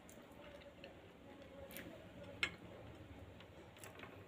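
Quiet eating sounds of a person chewing a grilled chicken wing, with a few sharp clicks, two of them louder and close together near the middle.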